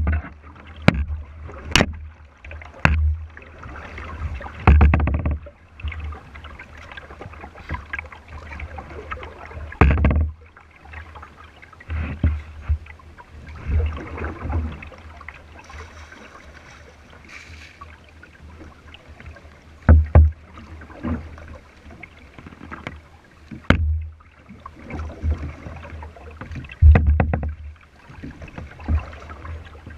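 Plastic kayak under way on a river: water splashing and swishing along the hull, with irregular knocks and low thumps carried through the hull, several of them loud.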